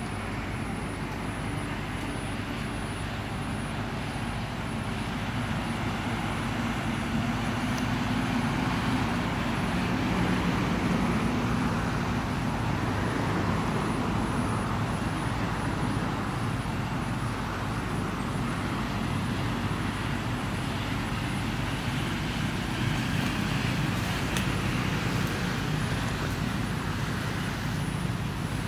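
Steady low background rumble with a faint, thin high whine above it, rising slightly in level a few seconds in.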